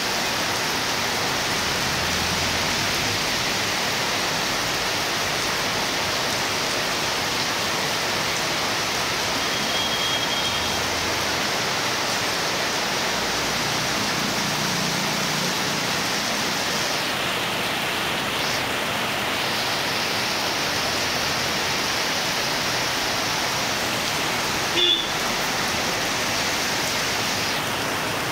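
Heavy rain pouring down on a street and its puddles, a dense steady hiss. A vehicle passes on the wet road about halfway through, and a single short sharp knock sounds near the end.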